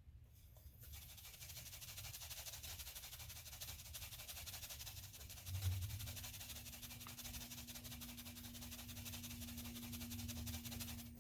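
A steady, faint hiss with a fine crackle that starts about a second in. A soft low thump comes near the middle, and a faint steady hum joins it.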